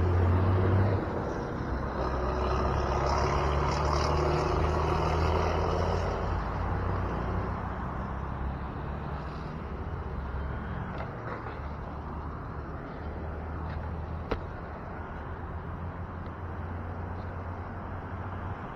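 Motor traffic: a vehicle's engine running close by with a steady hum, loudest for the first six seconds and then easing off. A single sharp click comes about fourteen seconds in.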